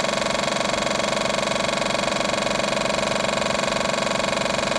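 High-pressure electric air compressor running steadily under load, its motor and piston pump giving a fast, even pulsing hum as it pumps the tank toward about 22 kg/cm².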